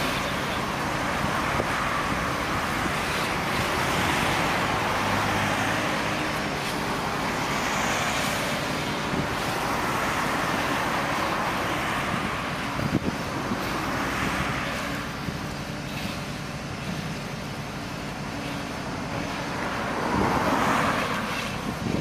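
Road traffic with vehicles swelling past every few seconds, the loudest near the end, over a steady low engine hum from a truck running.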